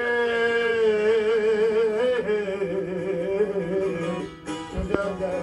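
Semah music: a man sings a long held, wavering note over a plucked long-necked lute, the bağlama. The music thins briefly about four seconds in, and there is one sharp click just after.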